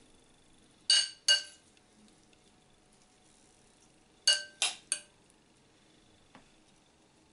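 Metal spoon clinking against a glass bowl while scooping salad, with a short ring after each hit: two clinks about a second in, then three quick ones a few seconds later.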